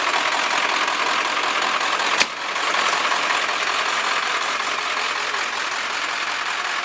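A vehicle engine idling steadily, with a single sharp knock about two seconds in.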